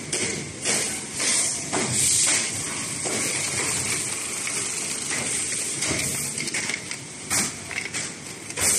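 Thermoforming vacuum packaging machine running, with irregular short hisses of air and mechanical clatter over a steady machine noise.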